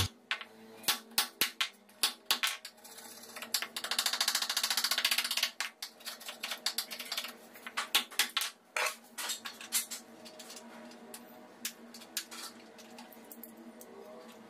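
Hammer striking a wood chisel, cutting a recess in the plywood edge of a sliding wardrobe door for the roller runner: irregular sharp taps, with a dense run of very fast strokes about four seconds in, and lighter, sparser taps near the end.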